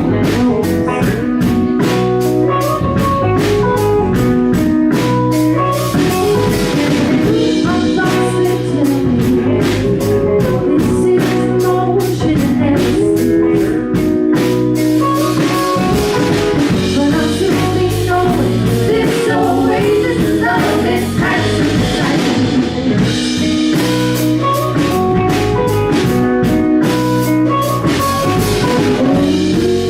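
Live band playing a blues-rock song: guitar and drum kit with a steady beat, and singing over them.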